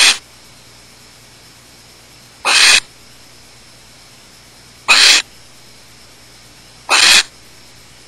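Barn owls in a nest box giving short, harsh hissing calls, four in all, about one every two and a half seconds, in the pattern of the begging hiss barn owls make at the nest.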